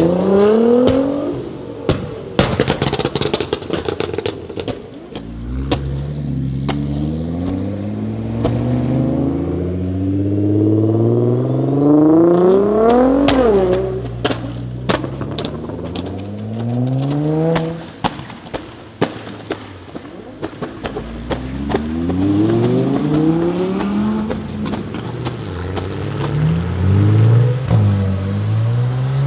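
Nissan GT-R R35 twin-turbo V6 engines accelerating hard away one after another, the engine note rising in pitch through the gears and dropping at each shift, with rapid crackles and pops from the exhaust. Another car accelerates in the same way near the end.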